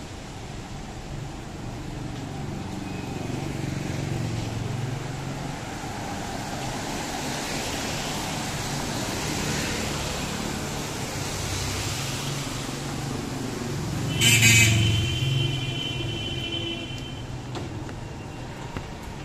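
Street traffic: vehicle engines running steadily, one passing close and fading, then a short vehicle horn honk about fourteen seconds in, the loudest sound.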